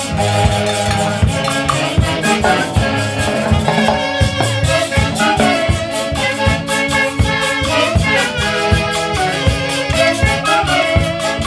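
A Huancayo orquesta típica playing live: wind instruments carry a melody over a steady, regular percussion beat.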